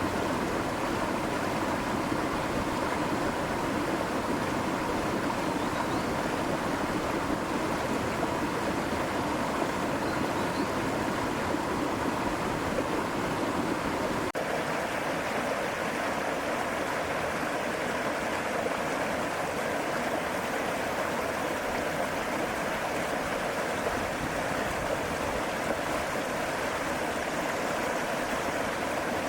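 A mountain stream spilling over a small waterfall, a steady rush of running water. About halfway through, the sound changes abruptly and becomes thinner and brighter.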